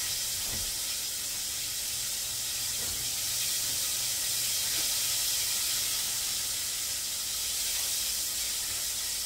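Whiting fillets deep-frying in a full pot of oil: a steady, loud sizzle with a few faint pops. Frying still this loudly is the cook's sign that the fish isn't done yet and needs a little longer.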